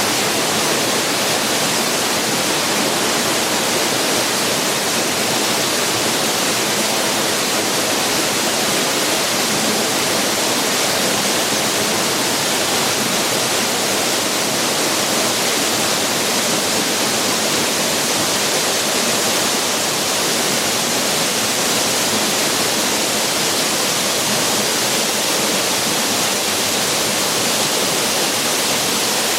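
Waterfall: a loud, steady rush of falling water with a strong high hiss, unchanging throughout.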